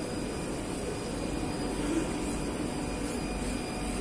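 Madrid Metro 3000-series train at the platform, giving a steady low rumble and hum with a faint high electrical whine.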